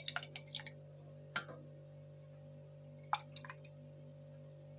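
Plastic ladle scooping and stirring thick adjika in an enamel pot: short wet clicks and taps in a cluster near the start, a single tap just after a second in, and another cluster about three seconds in, over a faint steady hum.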